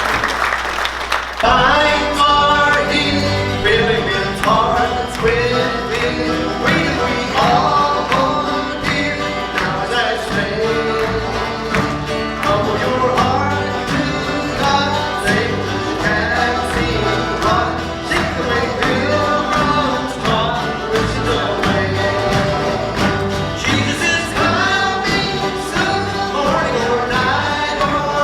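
Applause at the end of one song, then about a second and a half in a live church band starts an up-tempo country-gospel song, playing steadily.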